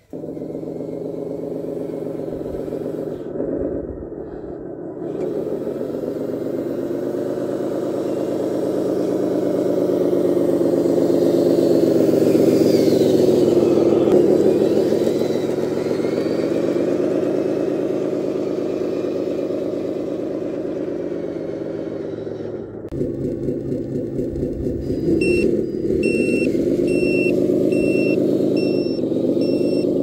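Simulated diesel engine sound of an RC MAN dump truck, running steadily and rising in pitch around the middle as the truck speeds up, then easing off. Near the end a reversing beeper sounds a string of short beeps, a little over one a second.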